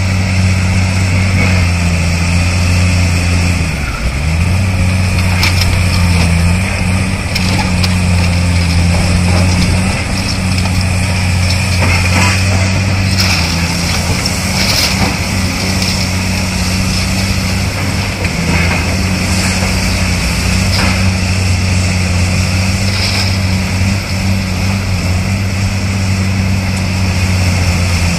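Diesel engines of large tracked CAT demolition excavators running steadily under load, with the engine note dipping briefly twice. Occasional short cracks and crunches of concrete rubble being broken and moved.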